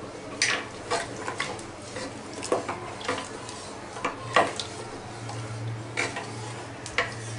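A spoon stirring mutton in a watery masala inside a pressure cooker, knocking and scraping irregularly against the metal pot, over a steady low hum.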